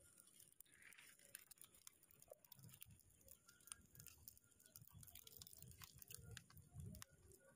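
Very faint crackling of a small twig fire grilling fish: scattered sharp little pops, with a low rumble joining in from about two and a half seconds in.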